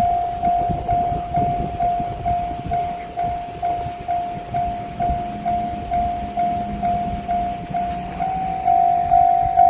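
Japanese level-crossing alarm bell ringing steadily at about two strokes a second, while a 185-series diesel railcar train rumbles past on the rails.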